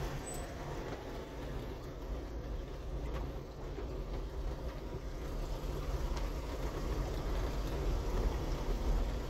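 A car driving slowly, heard as a steady low rumble of engine and tyre noise.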